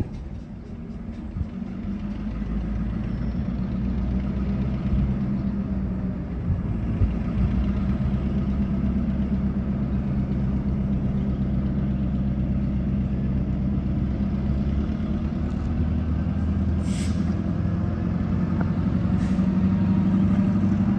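EMD GP38-2 diesel locomotive's 16-cylinder two-stroke engine running, a steady low drone that swells over the first several seconds and then holds. Two brief hisses of air come near the end.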